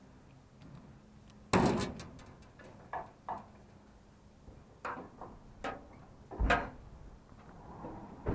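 Scrap items being handled: a loud clank about a second and a half in, then several lighter knocks, and a heavy thump a little past the middle.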